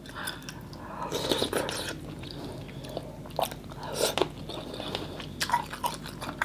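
Close-miked eating sounds of vegetarian mì Quảng noodles and toppings: wet chewing with short mouth smacks, and a brief slurp of noodles about four seconds in.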